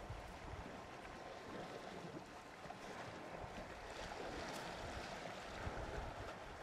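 Faint outdoor background noise: a steady hiss of wind and water, with a few soft ticks.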